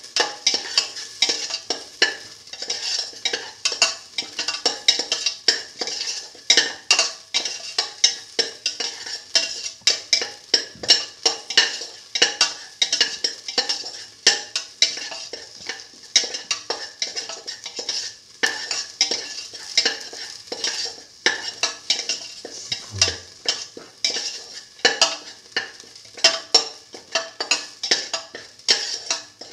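A perforated metal spatula scraping and knocking against a stainless steel pan, about two strokes a second, stirring sliced shallots as they fry in a little oil, over a steady sizzle.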